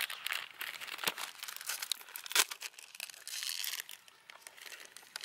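An ice cream bar's wrapper being torn open and peeled off by hand: irregular crinkling and crackling, with one sharper rip about two and a half seconds in.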